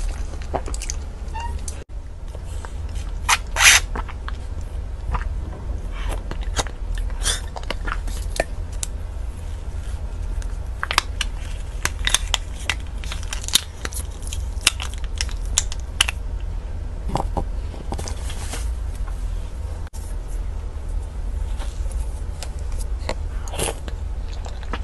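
Close-miked eating of soft chocolate cake: scattered wet mouth clicks, smacks and chewing, over a steady low hum. A cluster of sharper clicks and crinkles partway through comes as the cake's clear plastic collar is peeled off.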